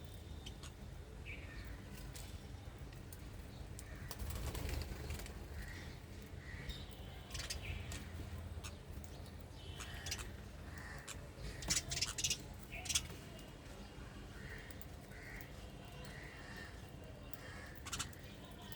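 Birds calling, with short calls coming in small groups of two or three, over a steady low rumble. A cluster of sharp clicks about two-thirds of the way through is the loudest thing.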